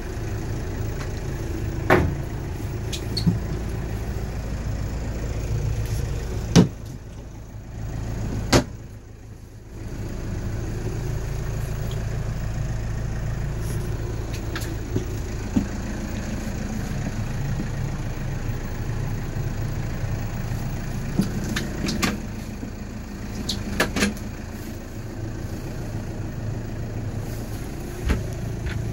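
Mazda Brawny's diesel engine idling steadily, with several sharp knocks and clunks over it. The hum drops away for a few seconds early on and then returns.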